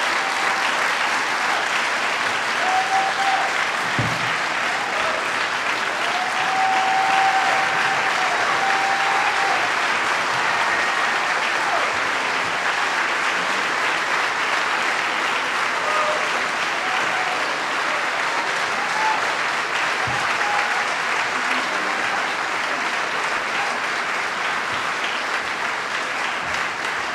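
Large audience applauding steadily, with a few brief voices calling out in the first several seconds.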